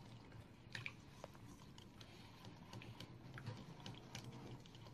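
Wire whisk stirring a milk-and-spice marinade in a mixing bowl: faint, irregular light clicks and taps.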